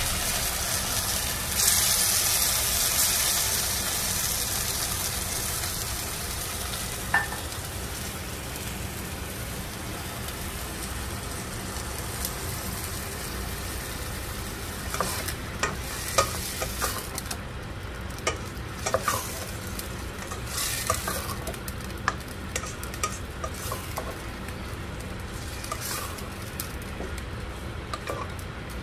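Pork sizzling in a nonstick pot, with a louder surge of sizzle about two seconds in that slowly dies down. In the second half, a spatula stirs the pork and tomato sauce, scraping and knocking against the pot many times.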